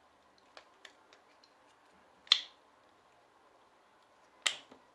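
Plastic parts of a coffee maker's water pump clicking as they are worked apart by hand: a few light clicks, then two sharp snaps about two seconds apart.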